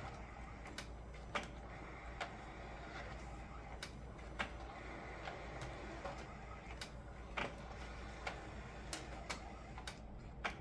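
Epson FastFoto FF-680W sheet-fed photo scanner feeding a batch of photo prints through its rollers: a faint mechanical run with sharp clicks at uneven spacing, roughly one a second.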